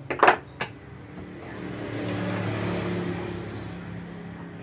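A few sharp hammer blows on the steel shock body held in a vise, spreading its lip to free the retaining ring for the seal change. Then a motor vehicle passes by, its engine hum swelling to a peak about halfway through and fading away.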